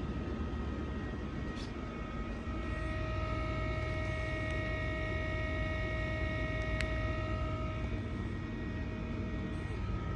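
Rainbow vacuum cleaner's motor running steadily, a constant rushing noise with a high whine.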